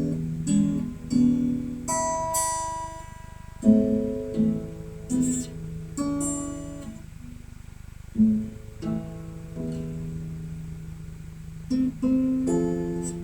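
Acoustic guitar played slowly, strummed chords and plucked notes each struck and left to ring out, about one a second, as a song accompaniment being rehearsed.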